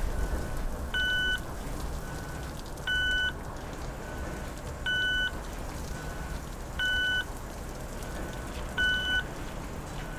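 Pedestrian crossing signal beeping while the light is red: a short beep about every two seconds, with a fainter beep between each, over a steady low rumble of city traffic.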